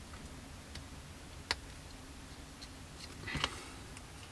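Faint handling noises of a small clear plastic model canopy and masking tape between the fingers, with a sharp tick about a second and a half in and a short rustle a little after three seconds.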